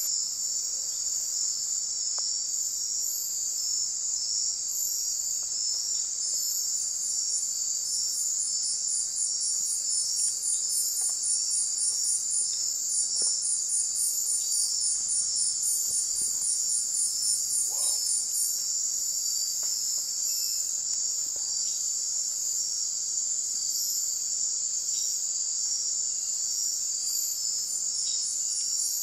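Dense night chorus of insects: a steady, high, shrill buzzing trill, with a second, higher insect's rapid pulsed trill, about four pulses a second, starting and stopping several times.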